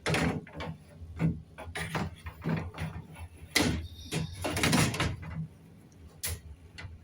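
The cover panel of an air-conditioning unit being handled and fitted back into place: a string of irregular knocks, clunks and rattles, with a brief squeak about four seconds in.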